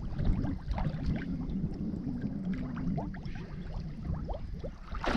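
Shallow water lapping and trickling, with many small drips and bubbling sounds over a low, steady rumble.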